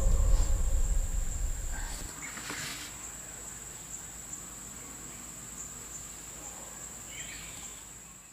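Insects trilling in a steady, high-pitched drone. A deep, sustained music note fades away over the first two seconds.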